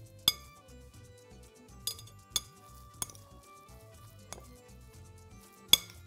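Metal spoons clinking against a glass mixing bowl as minced meat with herbs is stirred: several sharp clinks, the loudest shortly after the start and near the end. Soft background music runs underneath.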